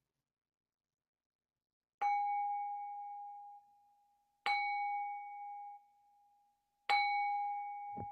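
A meditation bowl bell is struck three times, about two and a half seconds apart. Each stroke rings with a clear tone and then cuts off abruptly as it fades. The strokes mark the close of the zazen sitting, and a soft low thump comes near the end.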